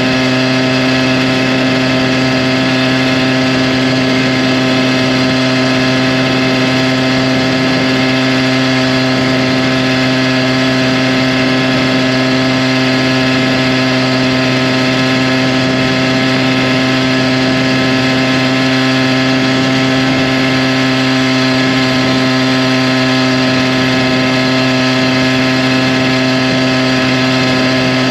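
ZTmoto Phantom 85 V3, an 85cc two-stroke motorized-bicycle engine, running hard at one steady pitch while the bike cruises at about 40 mph.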